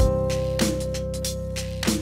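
Instrumental background music: long held notes over a few low beats.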